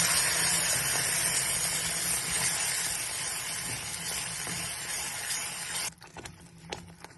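Blended tomato and chili paste sizzling in hot oil in a pan, loud at first and easing gradually, then cutting off abruptly about six seconds in; a few faint clicks follow.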